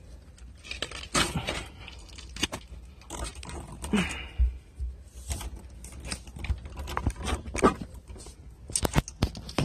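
Scattered clicks, taps and scrapes of hands working a plastic conduit clip and its screw against a wall, with a brief scraping noise about four seconds in.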